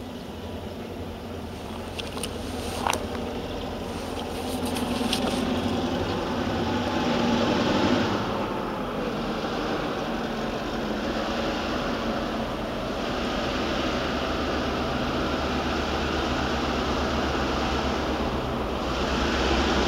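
Diesel railway locomotive rumbling low and steady, growing louder as the train approaches. A brief high falling note sounds about three seconds in.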